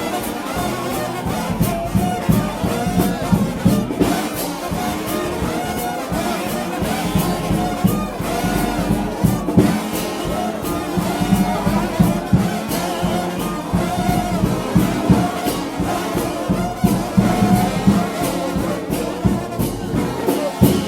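Brass shout band with trombones leading, playing a hymn over a steady drum beat.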